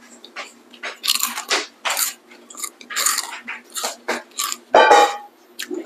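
Crisp puffed snack, Marty's Cracklin', being bitten and chewed close to the microphone: a run of irregular crunches. A short voiced hum comes about five seconds in.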